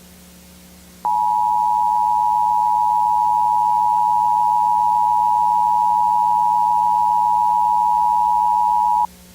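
Emergency Alert System attention signal: a loud, steady tone near 1 kHz that starts about a second in, holds for about eight seconds and cuts off suddenly. It is the alarm that announces an emergency warning is about to be read. A low steady hum from the tape lies underneath.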